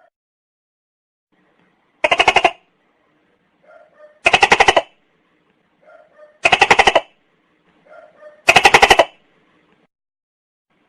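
Tokay gecko calling: four loud, rapidly pulsed calls about two seconds apart, each set off by faint short notes just before it.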